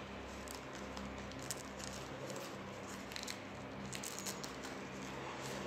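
Hands unwrapping a small lavalier microphone and its cable from its packaging: scattered light rustles and clicks over a low, steady hum.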